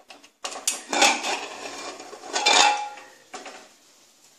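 Aluminium pressure cooker lid being opened and lifted off: metal clanks and scrapes of the lid against the pot in several bursts over about three seconds.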